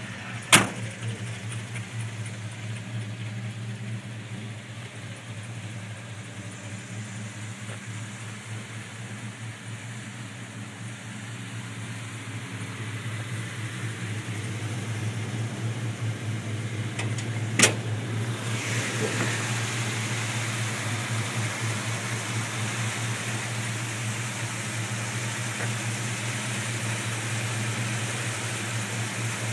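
1965 Plymouth Satellite's 383 big-block V8 idling steadily with a low, even pulse. Two sharp knocks cut across it, one just after the start and one about eighteen seconds in, after which the engine is louder and hissier.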